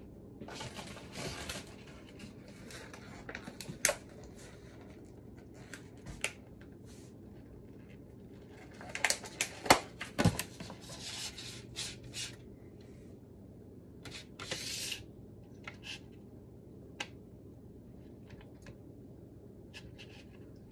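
Hands handling fresh thyme sprigs and a glass dish on a kitchen counter: scattered rustles and light clicks, busiest about nine to twelve seconds in, over a faint steady low hum.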